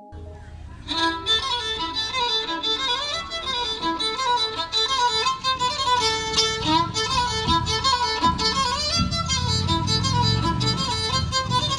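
Fiddle playing a Polish folk melody, starting about a second in.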